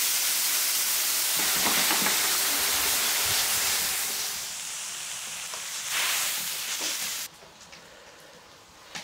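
Water poured onto a very hot cast-iron pot-lid griddle, flashing into steam with a loud, steady hissing sizzle. The hiss eases a little past the middle and stops abruptly near the end, leaving only a faint sound.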